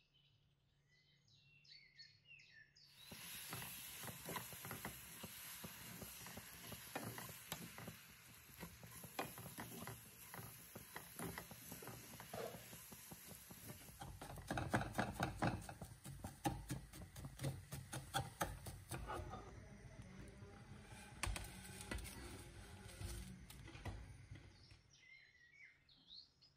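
Vermicelli and condensed milk being stirred and scraped in a nonstick pan: a steady crackling sizzle with many small clicks of the spatula against the pan, starting about three seconds in and growing louder about halfway through.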